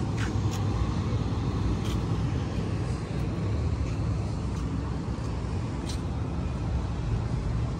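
Outdoor city background noise: a steady low rumble, with a few faint clicks scattered through it.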